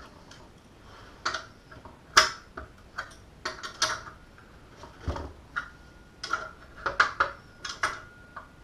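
Irregular metallic clicks and clinks of an adjustable wrench tightening nuts on a metal antenna mounting bracket, some clinks leaving a faint ring in the second half.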